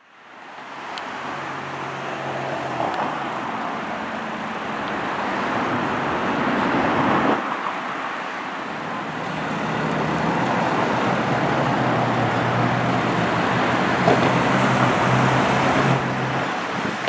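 Steady motor-vehicle noise, an engine hum over road traffic, fading in at the start with a brief break about seven seconds in.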